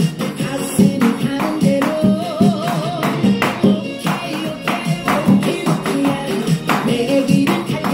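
Janggu, the Korean hourglass drum, struck with sticks in time to a recorded upbeat dance track with a steady beat.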